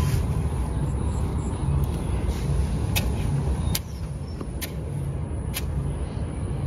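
Wind buffeting the microphone with a heavy low rumble, over a long-handled broom sweeping loose sandy soil. Four sharp clicks come about a second apart in the middle.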